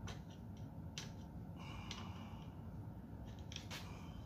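Light metallic clicks and scrapes of small valve-train parts and a hand tool being worked on the cylinder head of a 212 hemi small engine. A few separate clicks, one about two seconds in with a brief metallic ring.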